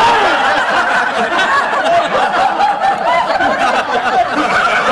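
Loud laughter from a seated crowd of children and adults, many voices at once, with clapping mixed in.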